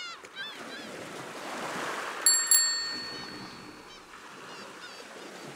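Short sound-logo jingle: surf washing in and fading away, with a few bird chirps, and a bright bell struck twice a little over two seconds in, its ring lingering for over a second.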